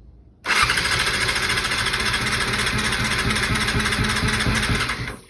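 Electric starter cranking a 2000 Yamaha R6's 600 cc inline-four with no choke on freshly rebuilt carburettors, the engine not catching. The cranking starts about half a second in, runs steadily for about four and a half seconds and stops abruptly.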